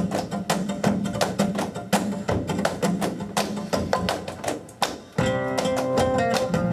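Flamenco tangos: rapid percussive zapateado footwork taps for about five seconds, then the flamenco guitar comes in strumming sustained chords.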